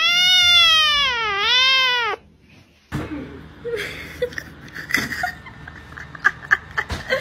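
A tabby kitten's loud, drawn-out meow lasting about two seconds, dipping in pitch partway and rising again before it stops. After a short silence come quieter sharp clicks and knocks with a few brief high squeaks.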